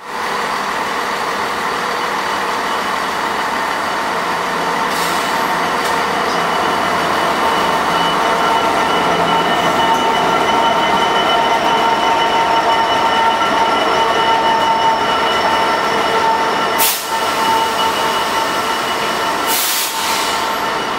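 DB Cargo Class 66 diesel locomotive hauling a freight train of wagons through the station, with a steady running noise of wheels on the rails and several steady high tones on top. A few brief sharp noises come near the end.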